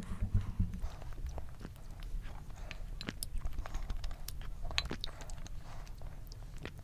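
Close-miked eating of affogato: scattered soft clicks and mouth sounds as a wooden spoon scoops coffee-soaked vanilla ice cream from a glass bowl and she eats it.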